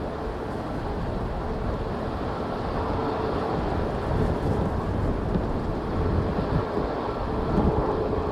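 Boeing 737 MAX 8's CFM LEAP-1B turbofan engines running with a faint steady hum, under strong wind gusting on the microphone.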